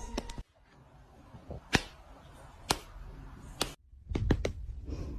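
Scattered sharp clicks or taps, roughly one a second, then several close together near the end.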